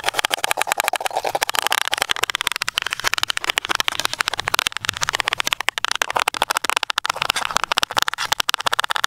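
Kitchen knife chopping onion, tomato and green chillies against a plate: a rapid, steady run of crisp taps, many a second, as the blade cuts through and strikes the plate.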